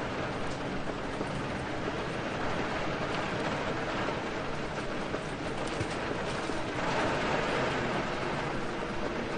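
Steady rain falling, a continuous even hiss of drops with a low rumbling undertone, swelling slightly a little past halfway.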